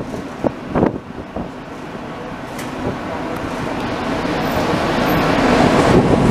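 Heritage tram running on rails, its wheels and running gear making a steady rolling noise that grows louder, with a couple of sharp knocks in the first second.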